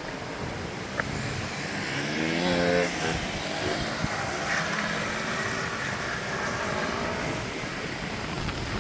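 Strong wind blowing across the microphone, with a motor vehicle's engine revving past about two to three seconds in, and a sharp click about a second in.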